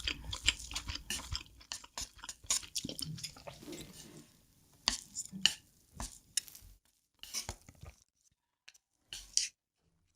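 Close-miked chewing of a mouthful of instant noodles, a thick run of wet clicking smacks for about four seconds. It then thins to a few separate bursts, with silent gaps near the end.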